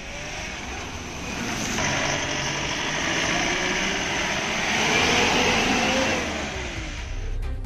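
Heavy vehicle engine running and speeding up over steady road noise. It grows louder and higher in pitch toward the middle, then eases off and falls in pitch near the end.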